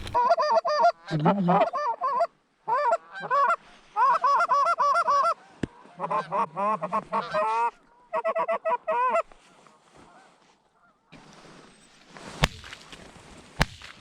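Geese honking and clucking in quick, rapid bursts for about nine seconds, then falling quiet. Near the end comes a faint hiss with a few sharp clicks.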